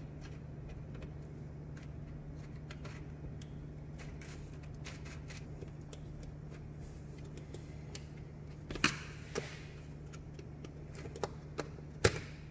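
Small metal vanes of a Garrett GT17 variable-geometry turbo clicking and clinking against the nozzle ring and the metal bench as they are worked into place by hand, with the sharpest clicks about nine seconds in and near the end. A steady low hum runs underneath.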